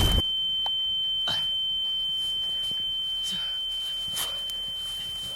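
A single steady high-pitched ringing tone that fades slowly: an ear-ringing (tinnitus) sound effect following a grenade explosion.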